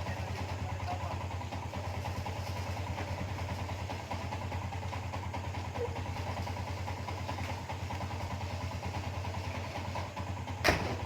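Hyundai excavator's diesel engine running steadily with an even, pulsing low throb, its fuel filter freshly replaced to cure a loss of power. A single sharp knock near the end.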